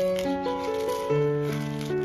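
Background music: a light melody of held notes that change pitch every half second or so.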